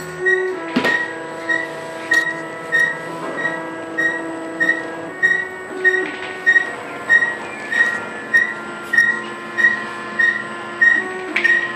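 KamerMaker large-format 3D printer running: its motors whine at several steady pitches that change as the print head shifts direction, over a short high chirp that repeats about one and a half times a second.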